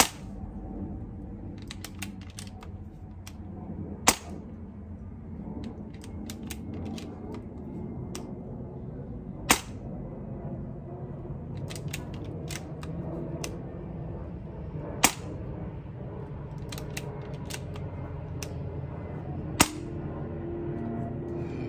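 Air rifle, a sub-12 ft-lb airgun, firing five single shots about five seconds apart, each a short sharp report, with quieter clicks between them.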